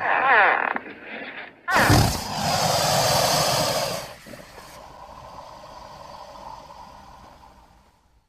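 Gharial vocalisations: a short run of falling, chirp-like calls, then a loud, harsh hissing roar from about two seconds in that lasts about two seconds and trails off into a fainter rumble that fades out.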